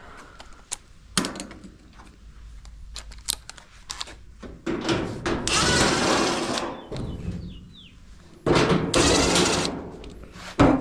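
Clicks, knocks and thunks of a dryer's metal cabinet being worked open by hand. Two louder stretches of scraping, one around the middle and one near the end.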